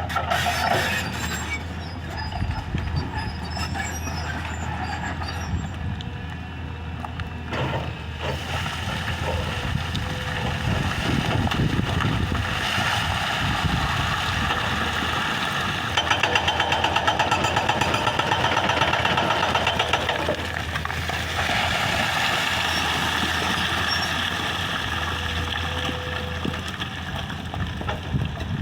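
Excavator's diesel engine running steadily under working load, with a fast, even rattling pulse for a few seconds past the middle.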